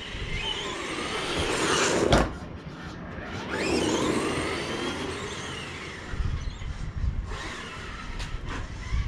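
Radio-controlled buggy driving on brick paving, its motor whining up and down in pitch as it speeds up and slows. It comes close twice: the first pass builds to a peak about two seconds in and breaks off with a sharp click, and the second swells around four seconds in.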